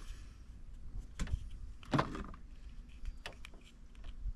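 A few separate light knocks and clicks of hands handling a battery cable and its crimped end, over a faint steady hiss.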